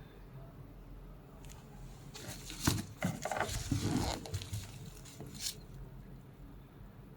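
Rustling and crinkling as packaging and a puffer bag are handled during unboxing, mostly in the middle, with a sharp click about two and a half seconds in and another brief one later.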